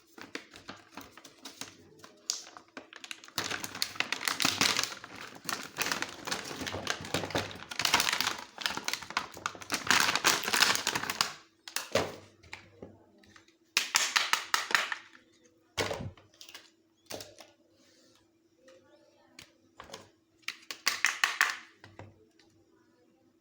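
Small plastic packaging being handled and opened by hand: long runs of rapid crinkling and clicking, with a few separate sharp taps and knocks between them. A faint steady hum runs underneath.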